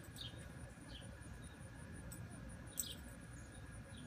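Birds chirping a few times, short falling calls, over a faint, high, steady pulsing insect trill.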